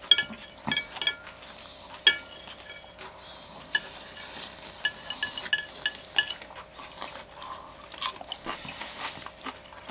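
Chopsticks clinking against a dish while food is picked up and eaten: about a dozen sharp, irregular taps, each with a short ringing tone.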